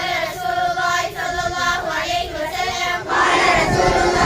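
A group of school students singing together in unison; about three seconds in, a louder mass of voices shouting together takes over.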